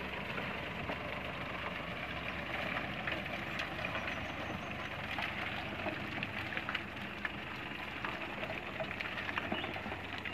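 Ford Ranger pickup crawling through deep mud: a steady low engine hum, with crackling and spattering as the mud-caked tyres churn the slick clay.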